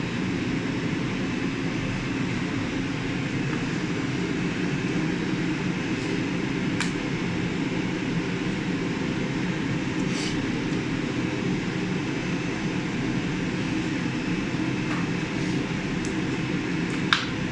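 Steady mechanical drone, like a fan or air-conditioning unit running, with a few light clicks or taps scattered through it, the sharpest just before the end.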